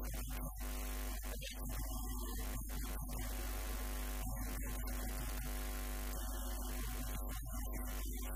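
Steady electrical mains hum with a ladder of buzzing overtones, over a constant hiss.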